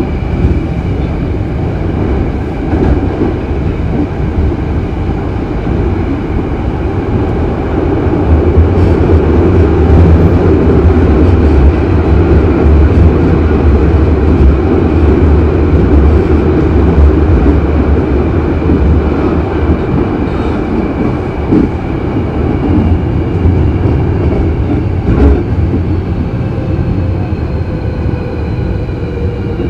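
Hankyu 8000-series electric multiple unit running, heard from inside the car: a continuous rumble of wheels on rail and traction equipment. It is loudest in the middle, and near the end faint motor tones fall in pitch as the train slows.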